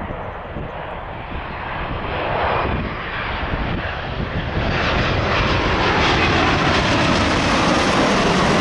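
Boeing 787-9 airliner on final approach with its landing gear down, its jet engines growing steadily louder and brighter as it comes in low overhead, loudest in the last few seconds.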